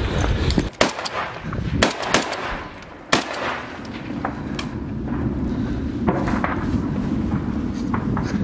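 Gunfire: several sharp, separate shots in the first three seconds. Then wind buffets the microphone, with a few fainter shots through it.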